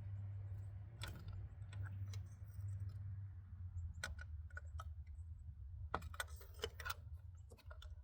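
Light metallic clicks and clinks of hand tools, a socket and ratchet working a spark plug into its hole, scattered at first, then a quick run of clicks about six seconds in. A low steady hum lies underneath.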